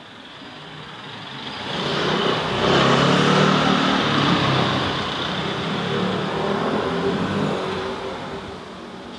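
A motor vehicle driving past, its engine and tyre noise building up, peaking about three seconds in, then fading away.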